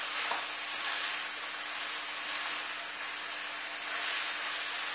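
Tofu and vegetables in a soy-sauce glaze sizzling in a hot wok with a steady hiss while being stirred with a silicone spatula.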